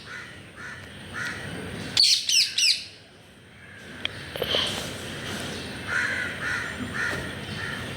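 Parrots calling: a burst of three or four harsh, loud screeches about two seconds in, with softer chirps before and after.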